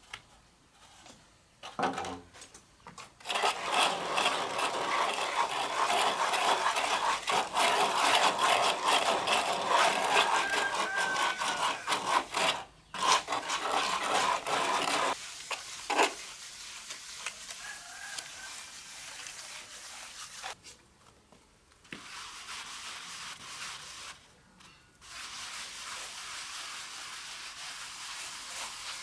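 Trowel scraping and rubbing across wet cement plaster, a rough run of quick strokes. It is loudest for about ten seconds, then goes on more faintly after a sharp knock near the middle.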